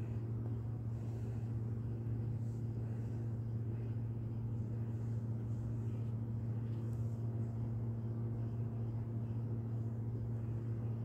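Steady low hum at a fixed pitch, unchanging throughout.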